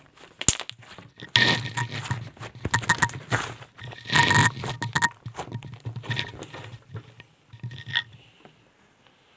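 Slime being squeezed and worked by hand, making irregular wet crackling and popping clicks in clusters.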